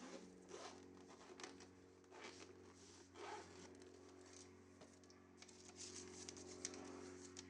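Faint rustling and crinkling of packaging as a clutch core is unboxed from its bag, in scattered bursts over a faint steady hum.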